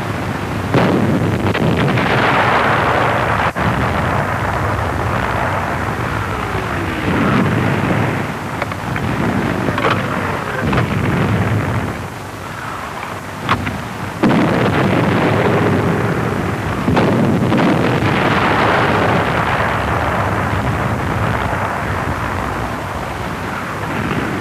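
Battle noise on an old wartime film soundtrack: long rumbling explosions, with a couple of sharp cracks and two falling whistles.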